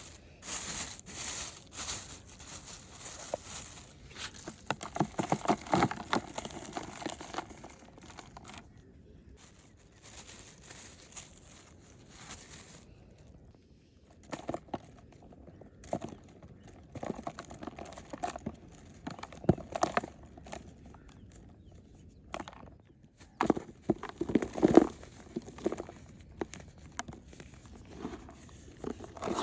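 Wet clay and muddy water being worked by hand: irregular squelches, splashes and crackles coming in uneven clusters.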